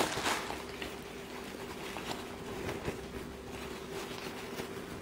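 Faint rustling and light scratching of a soft white wrapping around a camera body as hands handle it, after a crinkle of packing wrap dies away in the first half second. A faint steady hum runs underneath.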